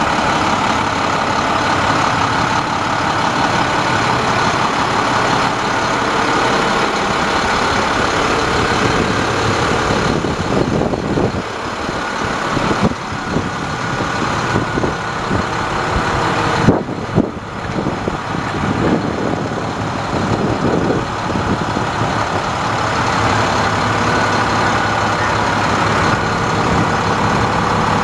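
International DT466 inline-six diesel engine idling steadily. Several knocks and a sharp click come through in the middle.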